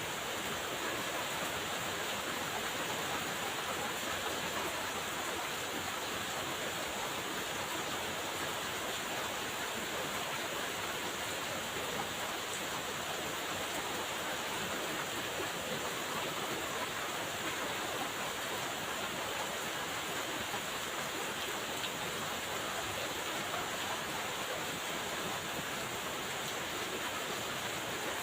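Steady rain falling, an even hiss with no separate drops or pauses.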